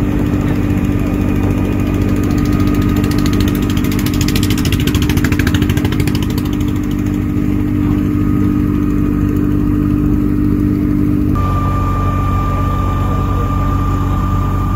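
Riverboat engine running steadily: a loud, even drone at a constant pitch, with an abrupt slight change in tone about eleven seconds in.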